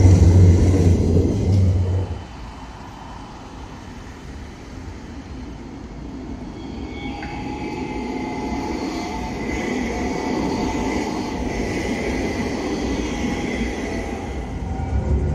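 Electric tram passing close with a loud low hum that stops abruptly about two seconds in. Then a second tram runs by on street track: its rolling rumble builds gradually, with a steady electric whine over it.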